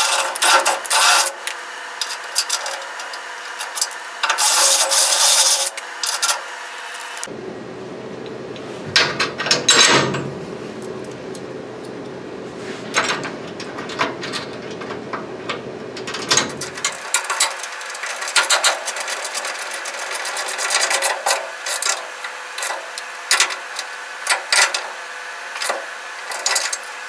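A cordless drill boring into a truck's steel frame rail, in loud bursts. After cuts in the sound, tool work on the bracket bolt follows, ending in a long run of rapid clicking from a ratcheting wrench.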